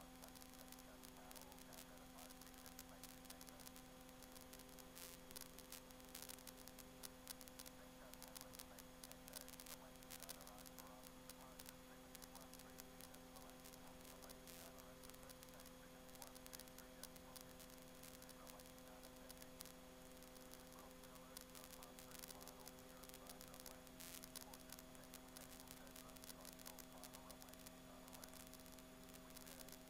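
Near silence: a faint steady electrical hum with hiss on the aircraft's intercom audio feed between radio transmissions.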